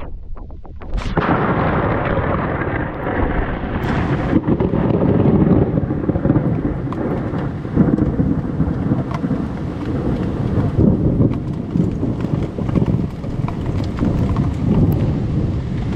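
A long rumble of thunder that starts about a second in and carries on loudly, over the hiss of heavy rain.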